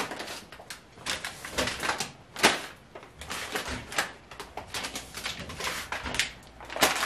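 Bagged food being taken out of an open side-by-side refrigerator by hand: plastic bags rustling and crinkling, with irregular light knocks and clatters against the shelves, the loudest about two and a half seconds in and near the end.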